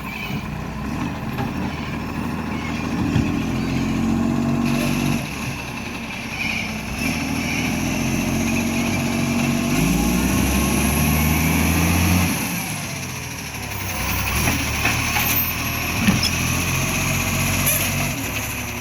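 Diesel engine of an Iveco ACCO garbage truck with an exhaust leak, running and revving, its pitch rising and then falling back. Several sharp knocks come in the last few seconds.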